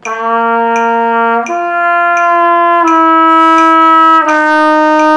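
B-flat trumpet playing a slurred lip-slur exercise, two beats per note: open low C, a jump up to open G, then stepping down to second-valve G-flat and first-valve F, which is still held at the end. A metronome clicks steadily underneath, about one click every 0.7 seconds.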